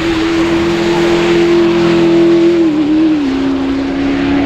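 A supercar's engine running at steady high revs, a strong even note that drops in pitch about three seconds in and then holds steady again.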